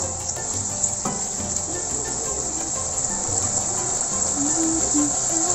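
Tofu and minced meat sauce sizzling steadily in a wok, with a wooden spatula knocking and scraping against the pan as it is stirred, sharpest right at the start and about a second in.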